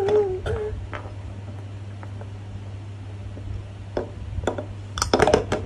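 A baby's drawn-out, wavering vocal sound trails off about half a second in, with one short call after it. Then only a steady low hum until a few light knocks and a flurry of sharp taps and clatter near the end.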